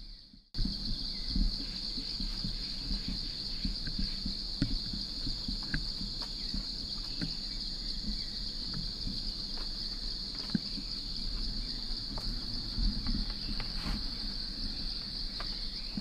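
Steady high-pitched drone of insects, unbroken throughout, over irregular footsteps rustling through dry leaf litter with scattered small clicks of twigs.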